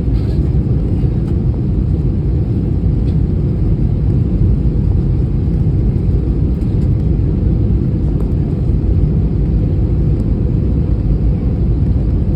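Steady low rumble of a jet airliner heard from inside the cabin: engine and airflow noise, even throughout.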